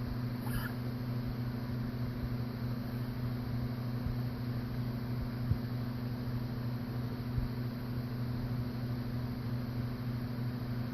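A steady low machine hum with a hiss, with two faint knocks around the middle.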